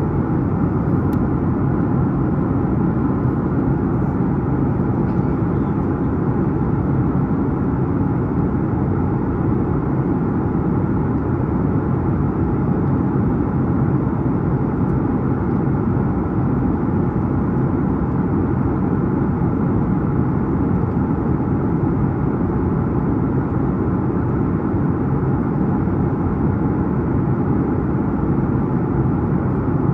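Steady in-flight cabin noise of a Boeing 737-9 MAX: the low drone of its CFM LEAP-1B turbofans mixed with the rush of air along the fuselage, unchanging throughout.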